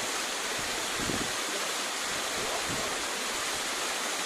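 Waterfall: a steady rush of falling water, with brief low rumbles about a second in and again near the middle.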